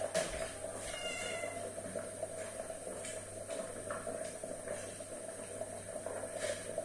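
Gas stove burner running steadily under a pot, with a brief high-pitched call about a second in.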